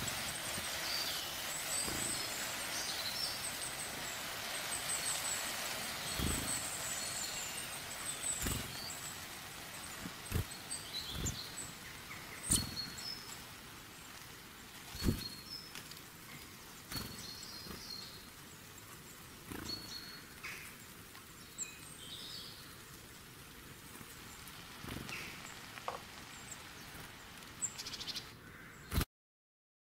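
Chicken curry sizzling and simmering in a large karahi, a steady hiss that fades over the first half, with a long metal spatula knocking against the pan about a dozen times. Birds chirp now and then in the background.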